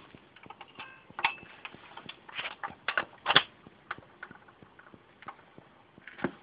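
BSR UA8 record deck on a Kolster Brandes Tunetime record player: irregular clicks and knocks, about a dozen scattered over a few seconds, over a faint hiss, as a record is set going.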